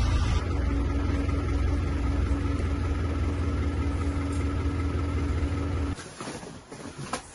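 A heavy engine running at a steady idle, a deep rumble with a constant hum over it. About six seconds in it cuts off abruptly, leaving faint knocks and clatter.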